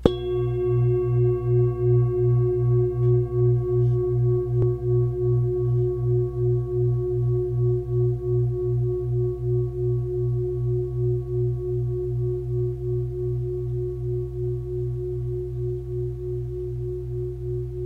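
One struck metal bell tone, ringing on with a slow pulsing wobble and fading gradually.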